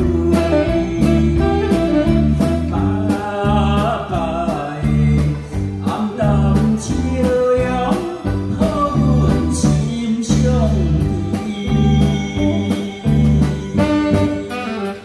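A man singing a slow popular song into a microphone over amplified band accompaniment, with guitar and a steady beat.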